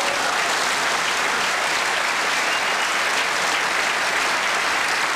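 A large seated audience applauding steadily, a dense even clatter of many hands.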